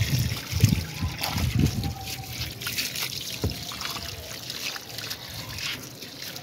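Water running from a hose into a tub of soapy water, trickling and splashing onto a soaked fleece blanket as it is rinsed, with scattered small splashes.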